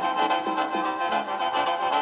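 Khaen, the bamboo free-reed mouth organ of Isan molam, playing steady held chords with a few changing notes over them, opening a lam song.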